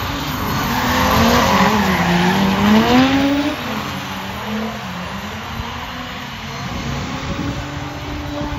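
Drift cars at full throttle in a tandem run, engines revving with pitch dipping and climbing, over the hiss of sliding, squealing tyres. Loudest between about one and three and a half seconds in, then easing off to a steadier engine note.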